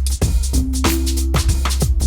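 Background music: an electronic beat with regular drum hits over a heavy bass, and a held synth chord through the middle.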